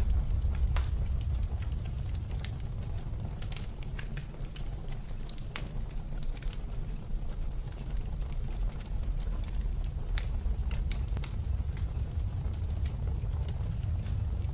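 Wood fire crackling with irregular sharp pops over a steady low rumble of blizzard wind.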